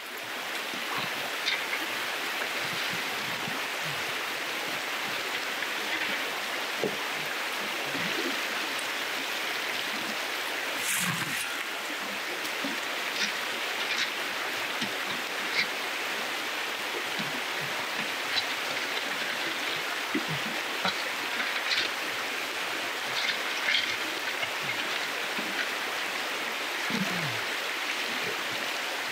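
River water running steadily over a shallow gravel bed, with scattered small gurgles and splashes.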